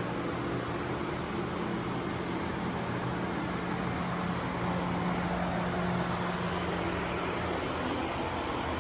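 Steady machine hum with a hiss over it, like shop ventilation or equipment running; the hum drops away near the end while the hiss carries on.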